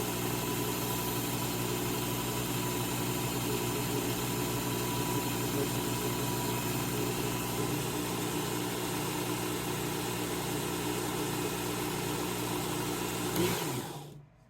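Work Sharp Knife and Tool Sharpener's electric belt grinder running steadily with a pizza wheel's edge held against the abrasive belt, grinding a burr onto it. Near the end the motor is switched off and winds down, falling in pitch to a stop.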